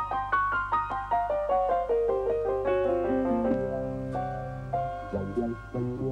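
Background piano music: a run of notes falling in pitch, then lower notes held near the end.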